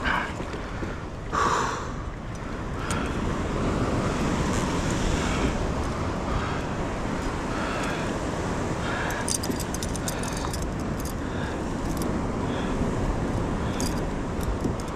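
Steady wind noise on the microphone with water moving around a kayak, broken by a short louder splash or knock about a second and a half in and a few light clicks of gear being handled near the middle.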